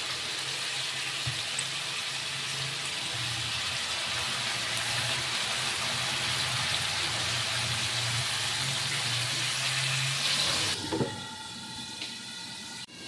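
Pork sizzling in a hot wok while liquid is poured in from a bottle, a steady hiss. About eleven seconds in, a glass lid goes on with a knock, and the sizzle turns quieter and muffled.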